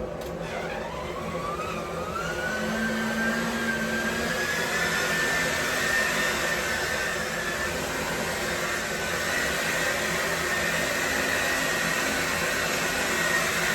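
Handheld hair dryer loaded with flour, switched on and running with a steady rush of air. Its motor whine rises in pitch over the first few seconds as it spins up, then holds steady until it cuts off suddenly near the end.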